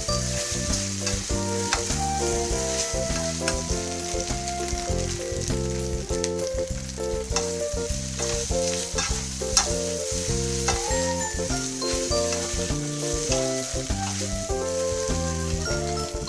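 Food sizzling as it fries in a pan, a steady hiss with small crackles, under background music with a melody and bass line.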